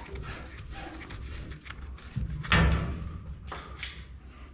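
Clicks and knocks from hands working a threaded black iron gas pipe and its fittings, with one heavier thump about two and a half seconds in.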